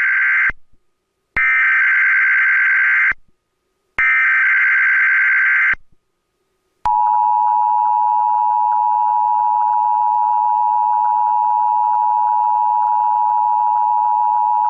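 Emergency Alert System Required Monthly Test relayed by a cable headend. The end of one SAME digital header burst is followed by two more identical buzzy data bursts about a second apart. About seven seconds in, the steady two-tone attention signal (853 and 960 Hz) starts and holds unbroken.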